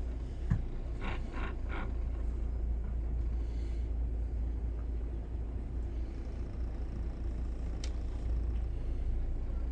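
Twin diesel engines of a Bayliner 4788 motor yacht running at low manoeuvring speed, a steady low rumble. A short thump about half a second in, and a sharp click near the end.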